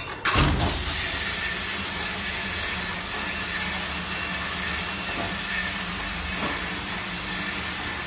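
Moyer Diebel 1000HT commercial dishwasher starting its wash cycle: a sudden start as the wash pump kicks in, then water spraying steadily inside the closed cabinet, with a low hum and a faint high whine.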